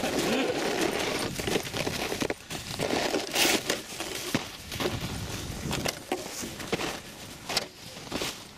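A sled carrying the camera sliding over crusty snow: a continuous scraping crunch, broken by many irregular knocks and jolts.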